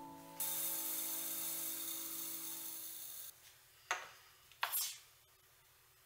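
Small dry grains poured through a metal funnel into a glass jar: a steady hiss lasting about three seconds, then two light knocks a little under a second apart.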